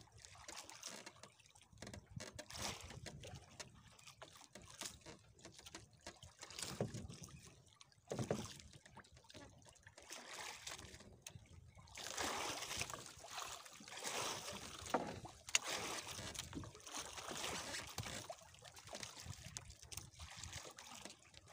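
Sea water lapping and sloshing against the hull of a drifting wooden outrigger boat in irregular swashes, louder in the second half.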